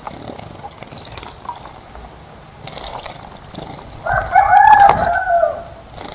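A rooster crows once, about four seconds in: one long call of about a second and a half that drops in pitch at the end.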